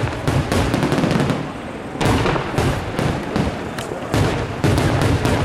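Aerial fireworks: a rapid, irregular barrage of shell bursts and bangs over a low rumble. It eases for a moment about a second and a half in, then a loud bang starts the barrage again.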